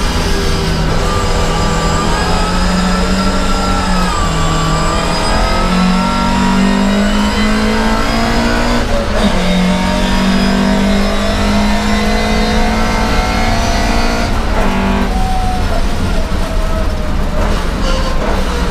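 Vintage Volvo 544 racing car's engine heard from inside the cabin, running hard under full load with its pitch slowly climbing, broken three times by brief gear changes.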